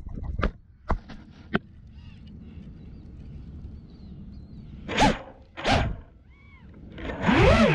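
FPV racing quadcopter crash: a few sharp knocks as it tumbles into grass, then quiet. About five seconds in, two short blasts of motor and propeller whine jolt the downed quad upright, and near the end the motors spool back up to a rising, wavering whine as it takes off.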